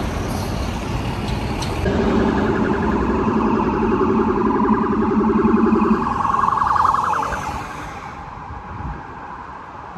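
Street traffic with a rapidly pulsing siren-like warning tone, loudest from about two seconds in and fading out near the end.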